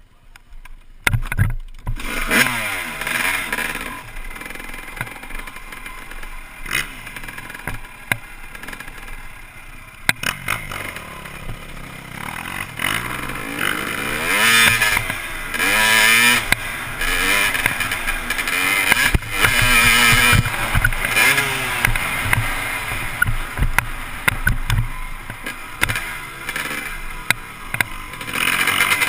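Dirt bike engine ridden hard on a motocross track, its pitch rising and falling again and again as the throttle is worked through the corners and straights. It picks up sharply about a second in.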